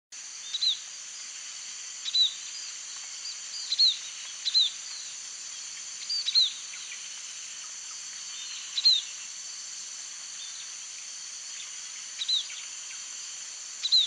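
White-headed munia giving short, thin, high call notes, often in quick pairs, every second or two, over a steady high buzz of insects.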